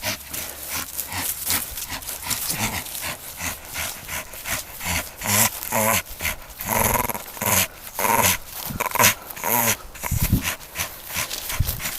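Staffordshire Bull Terrier growling in play, a run of short growls starting about five seconds in, amid scuffing and knocking as it tussles with a ball.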